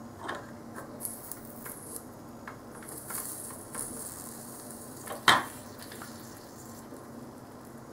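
Flux sizzling under a soldering iron as solder from a solder ingot melts onto the pins of a DIP chip. Light clicks and taps come from the iron and ingot against the pins, and one sharper click about five seconds in is the loudest.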